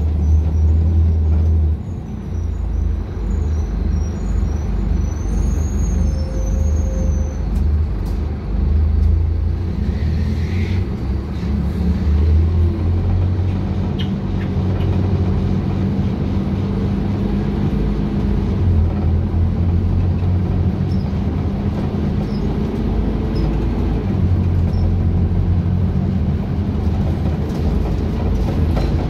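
Cabin noise inside a moving Scania K250UB city bus: a steady low diesel engine drone with road noise, swelling and easing as the bus drives. A brief squeal comes about ten seconds in.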